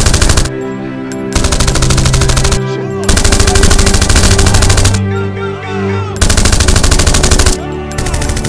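Automatic rifle fire in long rapid bursts, about five of them with short breaks between: covering fire for a soldier moving to flank. A music score runs underneath.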